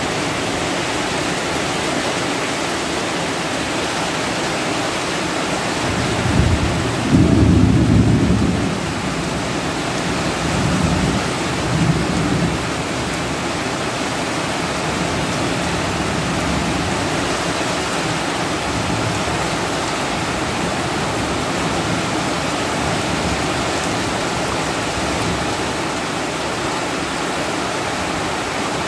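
Heavy rain pouring steadily, with a low roll of thunder swelling up about six seconds in and dying away by nine, followed by a couple of fainter rumbles.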